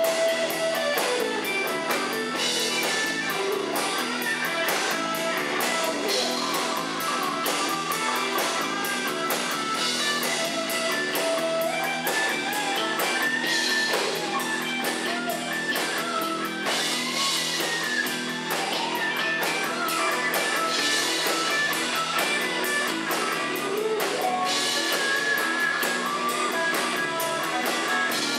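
Live rock band playing: an electric guitar takes a lead line with bent notes over bass guitar and a drum kit.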